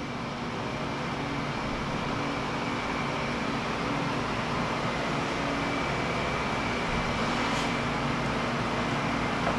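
A steady machine hum with low droning tones and a faint high whine, unchanging throughout.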